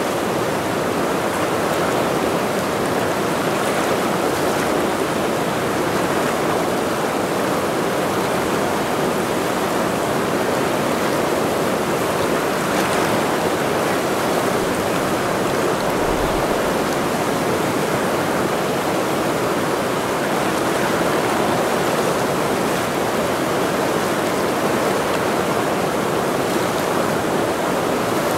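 The Ursul mountain river running: a steady, even rush of water.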